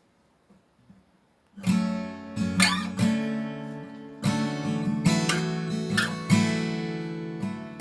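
Acoustic guitar strumming chords, starting about one and a half seconds in after near silence.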